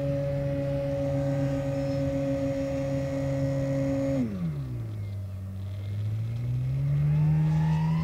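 FMS Pitts model biplane's electric motor and propeller running at a steady high pitch, then dropping sharply in pitch about four seconds in as the plane goes over the top of a loop, and rising again near the end as power comes back on.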